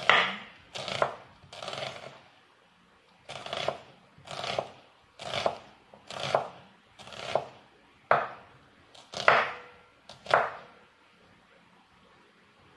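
Kitchen knife slicing an onion thinly on a wooden cutting board: about eleven slow cuts, roughly one a second, each ending in a knock of the blade on the board, with a short pause after the first three and the cutting stopping near the end.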